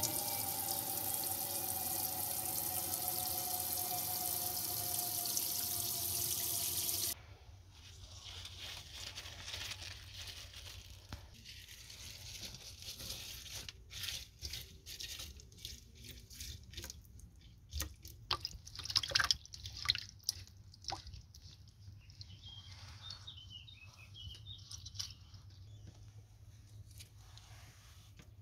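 A tap runs a steady rushing stream into a sink basin for about seven seconds, then shuts off abruptly. After that come quieter splashes, drips and sloshing as hands swish wild garlic leaves in the water.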